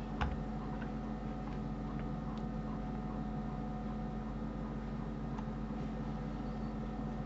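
Steady low electrical hum and hiss of a recording setup, with a few faint clicks.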